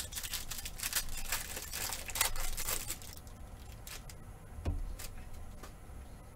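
Clear plastic wrapper of a basketball card pack crinkling and tearing as it is ripped open by hand, dense and crackly for about three seconds. One low thump follows about halfway through.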